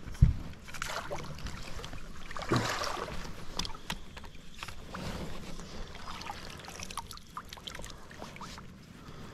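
A hooked Murray cod splashing at the surface as it is drawn into a landing net beside the boat. A heavy knock comes just after the start, and light knocks and clicks from the handled net and rod gear follow throughout.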